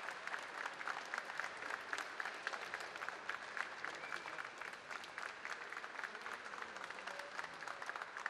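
Crowd applauding: many hands clapping in a dense, steady stream.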